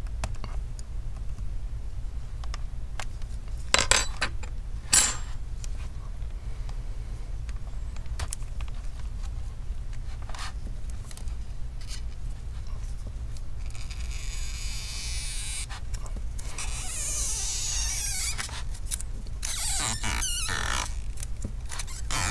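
Double-sided adhesive tape being slowly pulled out from under a laptop LCD panel. Scattered small clicks and taps, two sharper clicks about four and five seconds in, then a long hissing peel of tape in the second half, over a steady low hum.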